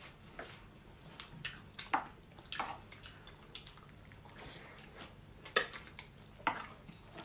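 Close-up eating sounds: wet chewing and mouth clicks mixed with scattered light taps of a spoon on a plate, two sharper clicks near the end.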